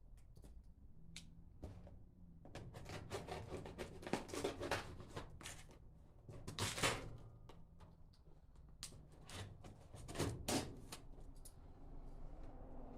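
A package being opened and unpacked by hand: irregular rustling and scraping of the packaging, with scattered clicks and knocks and a few louder bursts of handling.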